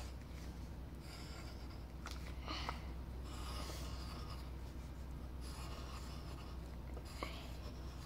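Pencil scratching on paper in a series of short drawing strokes with brief pauses between them.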